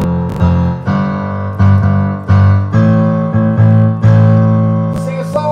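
Digital piano played with both hands: a run of full chords with heavy low bass notes, a new chord struck every half second to a second.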